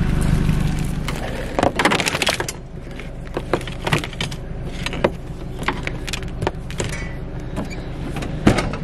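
Rustling, scraping and clattering as a tangled extension cord is gathered up and dropped into a vehicle's cargo area among scrap metal, with many sharp knocks and clinks, the busiest stretch about two seconds in. A low steady vehicle engine hum fades out in the first second.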